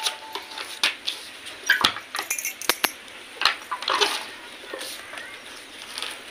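Hand-operated papad press being worked: irregular sharp clicks, knocks and light clinks as the hinged press and its lever handle are opened, closed and handled.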